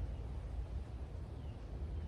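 Outdoor background noise: a steady low rumble with a faint hiss above it.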